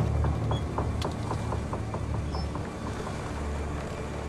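Wooden sailing ship at sea in a film soundtrack: a low steady rumble with a quick run of light creaks and clicks from the timbers and rigging, about five a second.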